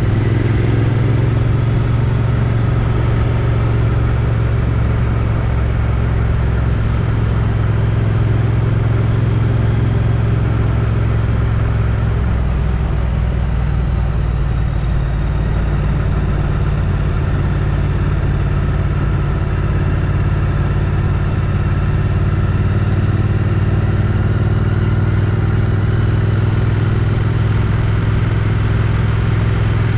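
Triumph Street Twin's 900 cc parallel-twin engine running through its stock exhaust at a steady cruise, heard from the rider's helmet with wind rush. The revs ease off a little about halfway through, then pick up again toward the end.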